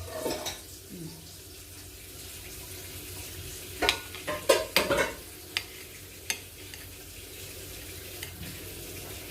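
Eating sounds: a spoon clicking and clinking against a dish, a quick cluster of short clicks about four to five seconds in and a couple more shortly after, over a quiet steady background.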